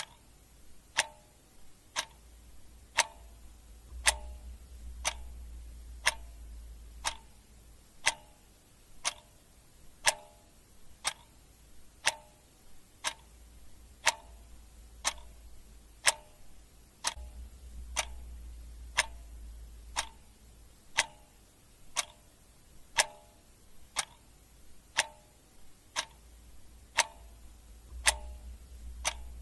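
Clock ticking steadily, one tick a second, under a faint low rumble that swells and fades a few times.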